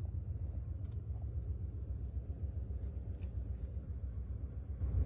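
Steady low rumble inside a passenger train car standing at the platform, with a few faint clicks.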